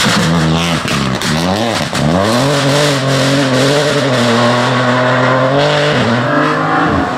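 Opel Corsa rally car's engine revving hard, its pitch swooping up and down quickly as the car slides through a corner. It then pulls away at high revs, holding a steady pitch before dropping away near the end.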